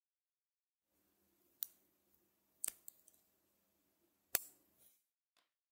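Small neodymium magnet balls clicking sharply against each other as fingers pinch and press them into a small ring, with three loud clicks about a second apart and a few fainter ones. Soft rustle of fingers handling the balls runs under the clicks.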